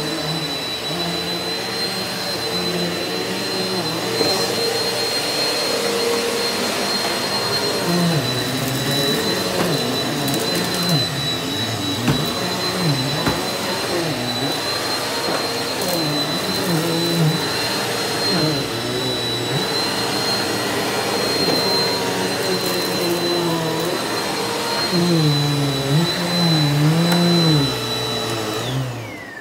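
Eureka NEU180B Power Speed upright vacuum cleaner running on carpet with a steady high whine over a lower drone that rises and falls in pitch. Near the end it is switched off, and the whine falls away as the motor winds down.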